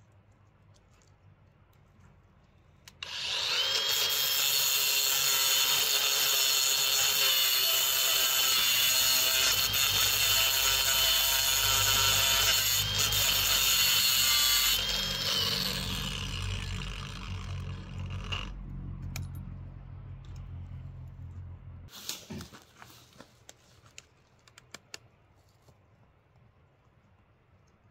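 Cordless angle grinder cutting into a steel rail: it starts about three seconds in with a high whine, runs for about twelve seconds, then spins down. A few light clicks follow near the end.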